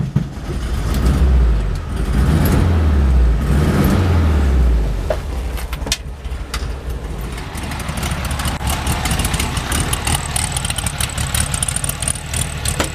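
Freshly rebuilt air-cooled VW 1600 dual-port engine with a small Engle racing camshaft, just started: it is revved up and down a few times in the first five seconds, then settles into a steadier, fairly high idle with a throaty sound.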